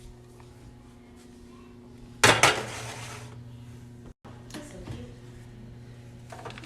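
Kitchen clatter of cookware and dishes: a loud sudden clash about two seconds in that dies away over a second, then a few lighter knocks, over a steady low hum.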